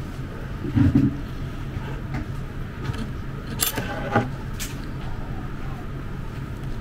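Handling noise in a small room over a steady low hum: a loud thump about a second in, then a few sharp clicks and knocks from things being moved on a desk and a chair.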